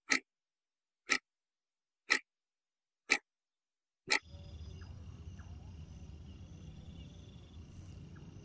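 Five sharp ticks exactly one second apart over dead silence, like an edited-in clock-tick effect. About four seconds in, the night background returns: a steady insect chirping over a low hum.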